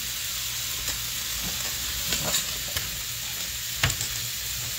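Seasoned pork loin chops sizzling in a hot cast-iron skillet: a steady frying hiss. A few short clicks come through it, the sharpest about four seconds in.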